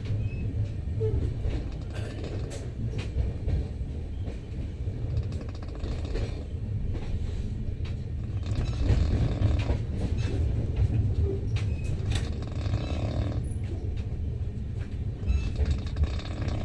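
A person snoring with rasping breaths a few times, over the steady low rumble of a moving passenger train in a sleeper-class carriage.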